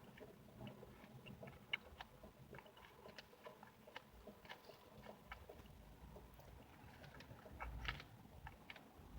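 Quiet, close-up sounds of a person eating pie: scattered small wet clicks and smacks of chewing, a little louder about a second and a half in and again near the end.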